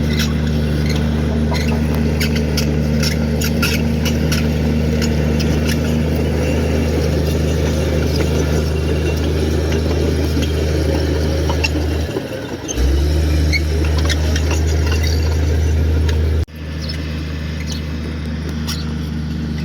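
Komatsu D58 crawler bulldozer's diesel engine running steadily, with repeated squeaks and clicks from the steel tracks. The engine note dips briefly about two-thirds of the way through and comes back stronger, then falls away suddenly to a lower, steady running sound near the end.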